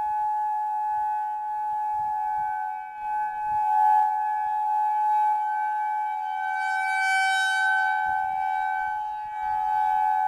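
Federal Signal 2001-130 and Modulator II 5020B outdoor warning sirens sounding the steady Alert signal: one constant tone near 850 Hz that swells and fades in loudness every few seconds.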